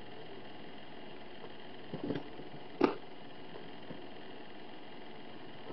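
A cat pouncing and dropping onto a floor mat: a few soft thumps about two seconds in, then one sharper, louder thump just before three seconds, over a steady faint hiss.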